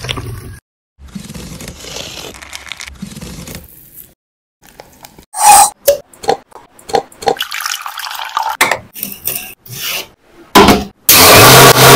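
Kitchen work sounds cut together: water running and dripping, and short knocks and clinks of pots, dishes and utensils, with a loud rush of noise near the end.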